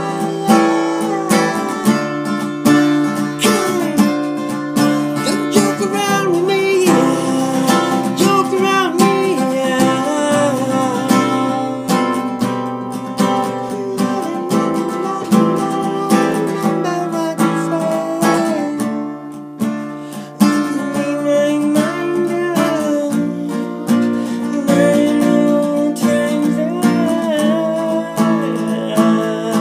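A man singing while strumming chords on an acoustic guitar, the voice sliding and bending over the steady strum, with a short lull about two-thirds of the way in.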